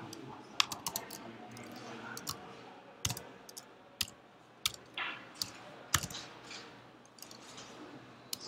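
Computer keyboard keys tapped in scattered, irregular clicks as numbers and commas are typed.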